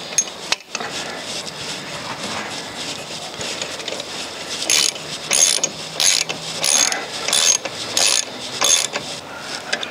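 Ratchet socket wrench tightening a 13mm bolt into a masonry wall plug: quick pawl clicking, which turns into regular back-and-forth strokes about every 0.7 s in the second half as the bolt is done up tight.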